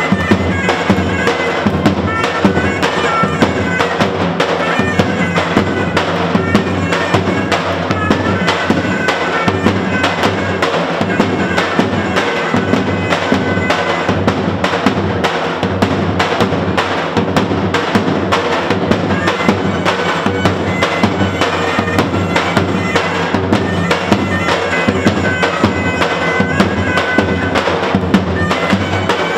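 Traditional Albanian wedding dance music: large double-headed drums beating a steady, dense rhythm under a reedy wind-instrument melody.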